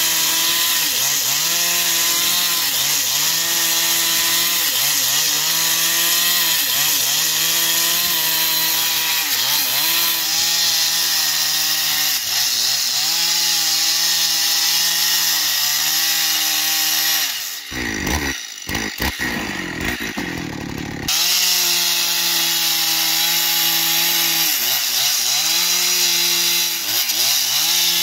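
Husqvarna two-stroke chainsaw cutting into a large wooden slab at high revs. Its pitch dips under load and recovers every second or two as the bar is worked into the wood. For about three seconds past the middle it falls quieter and uneven, then comes back to full cutting.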